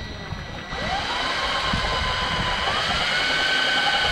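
Cordless drill motor spinning up with a rising whine, its pitch stepping higher about two and a half seconds in and then holding steady.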